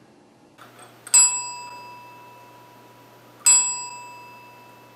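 A desk service bell struck twice, about two and a half seconds apart. Each bright ding rings on and fades away slowly.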